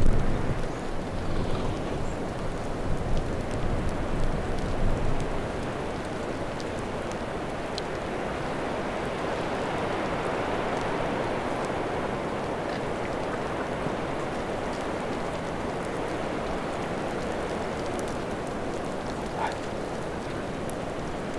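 Steady rain falling, an even hiss with scattered faint drop ticks, with low wind rumble on the microphone in the first few seconds.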